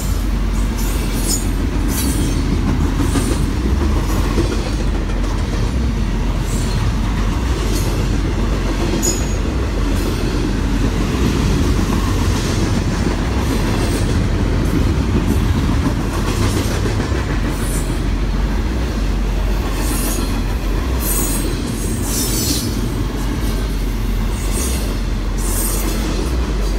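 Double-stack intermodal freight cars rolling past: a steady rumble of steel wheels on rail, with short high-pitched wheel squeals breaking in every few seconds.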